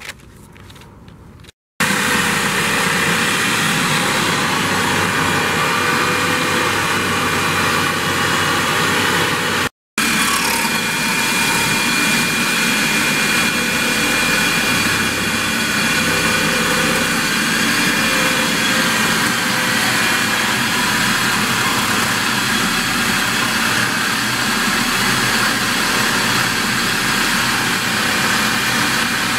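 Handheld power grinder or sander running continuously, a loud steady hiss with a high motor whine. The sound cuts out briefly about two seconds in and again about ten seconds in.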